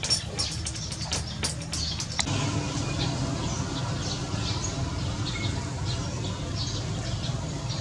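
A quick run of sharp clicks in the first two seconds, then small birds chirping over a steady low rumble.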